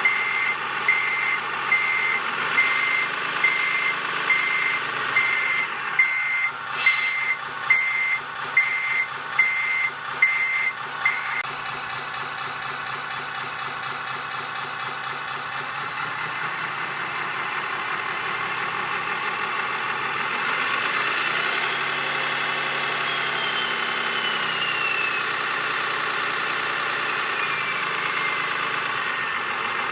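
Servonaut SMX sound module in a Scania R620 model truck playing its simulated truck sound through a small speaker: reversing beeps repeating steadily over a diesel idle, stopping about eleven seconds in. The engine sound then revs up around twenty seconds in and falls back.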